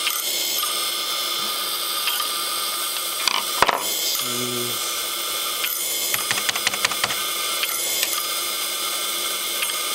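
Old 8 GB hard drive running with its cover off: the spindle spinning the bare platter with a steady high whine and hiss, and the head arm seeking in a burst of rapid clicks around six to seven seconds in, the damaged drive still trying to read. A single sharp knock comes a little after three and a half seconds in.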